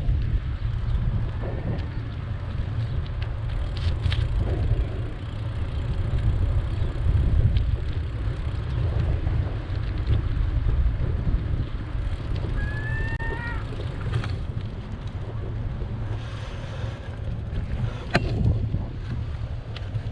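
Wind rumbling on the microphone of a moving bicycle, with a few faint clicks and, about two-thirds of the way in, one short high squeak.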